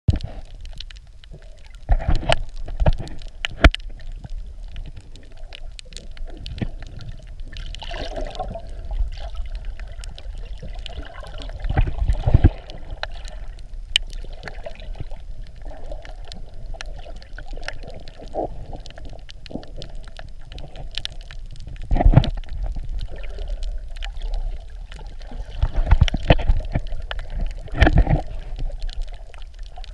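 Muffled underwater sound picked up through a waterproof camera housing: a steady watery rush and low rumble, broken by scattered knocks and several clusters of louder thumps as the housing is bumped and moved.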